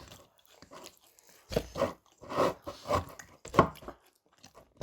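Someone chewing and biting into crispy fried chicken, with several loud crunches in the second half.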